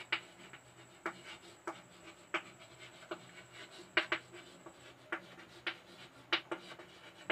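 Someone writing by hand: a string of short, irregular scratching strokes, roughly one to two a second.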